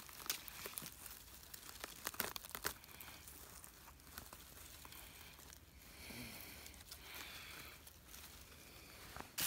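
Dry grass and fallen leaves crackling and rustling close by as a hand works around a porcino's stem and pulls it out of the ground, with sharp clicks in the first three seconds and softer rustling after.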